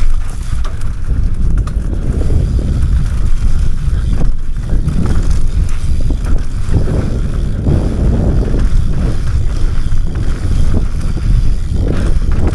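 Enduro mountain bike riding down a rough, rocky trail: wind buffets the helmet-mounted camera's microphone over a steady rumble of tyres on the ground, with frequent knocks and rattles from the bike.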